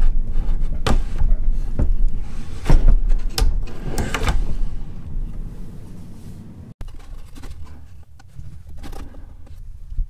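A plywood drawer being pushed in and pulled out on metal soft-close drawer slides, with a run of sliding rattles and sharp knocks over the first four seconds or so. Fainter clacks of drawer handling follow near the end.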